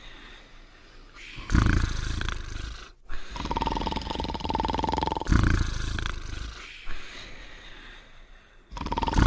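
Cartoon snoring from sleeping dogs. Loud, deep, rasping snores alternate with a steady high tone on the breath out, the cycle repeating about every four seconds.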